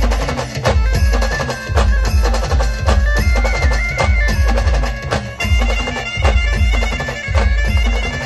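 Marathi village band playing a devotional song: a reedy wind lead holds long melody notes that step up and down in pitch, over heavy, steady drum beats and sharp percussion strikes.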